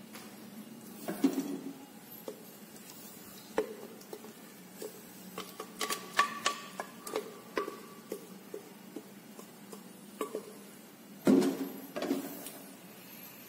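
Wooden spatula scraping and tapping inside a glass blender jar, knocking thick blended chili paste out into a wok: a run of short taps and clicks, with a louder knock about a second in and another near the end.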